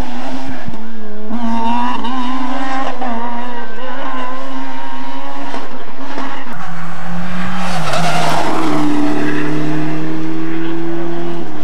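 Rally car engines at full throttle on a tarmac stage, revving and changing gear as the cars climb past. About six and a half seconds in, the engine note drops and changes as another car takes over.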